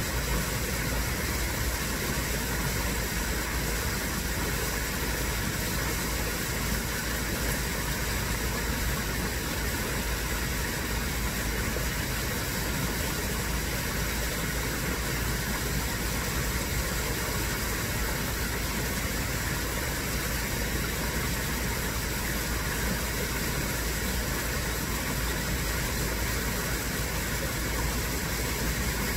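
Steady rush of water from a small garden pond waterfall spilling over rocks into the pond.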